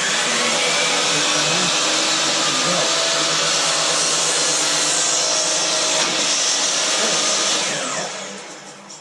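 Electric power saw running at full speed as it cuts through a wooden board, then its motor winding down after the trigger is released near the end.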